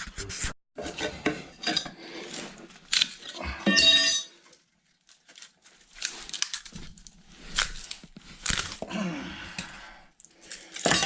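Tools and small hardware being handled: irregular clattering, clinking and rustling, with a short metallic ringing clatter about four seconds in.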